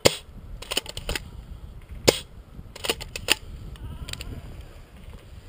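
Footsteps through undergrowth, with dry twigs snapping and branches brushing: a series of sharp, irregular cracks, the loudest right at the start and about two seconds in.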